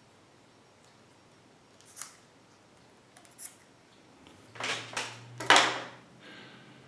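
Small spring-loaded snips clipping the excess latex off a turkey mouth call: a couple of quiet snips, then louder rustling and handling noise about four to six seconds in as the snips are set down and the call is handled.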